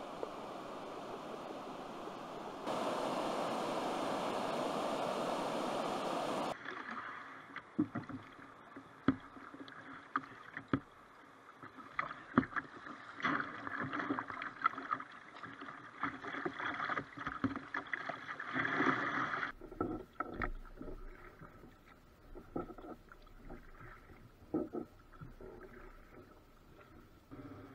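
Water rushing over a sloping river weir, a steady noise that gets louder about three seconds in. Then a kayak paddled through rough water: water noise with splashes and sharp knocks of the paddle. About two-thirds of the way through the water turns calm and the paddle splashes and knocks are quieter and sparser.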